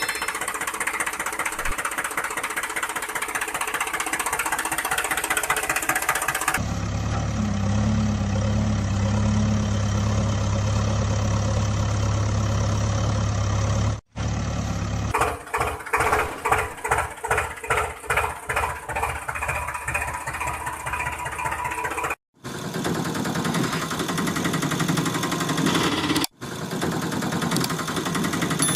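Tractor engine sound in several short takes that cut off abruptly between one another: a rough running engine, then a steady low idling hum, then a rhythmic chugging run, then rough running again.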